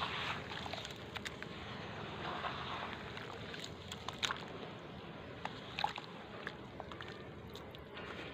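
Hands squeezing and crumbling wet sand-and-cement lumps underwater in a plastic basin, the water sloshing, with scattered sharp pops and crackles as the crumbled mix fizzes and releases bubbles.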